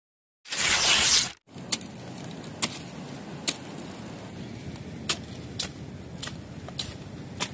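A short loud noisy burst about half a second in, then a machete chopping into a sea pandanus plant: about eight sharp cuts, half a second to a second apart, over a steady background hiss.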